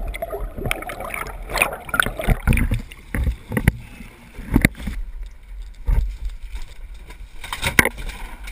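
Sea water splashing and sloshing against a boat's hull, with irregular knocks and thumps, as a big swordfish is gaffed and hauled up the side of the boat.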